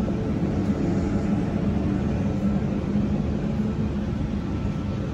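Steady low rumble with a faint hum underneath: the background noise of a large railway station concourse.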